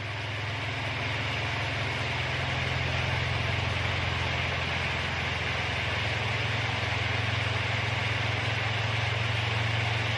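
Toyota Yaris engine running steadily with a low, even drone, and no clunks or knocks heard from the front suspension after its loose crossmember bolts were tightened.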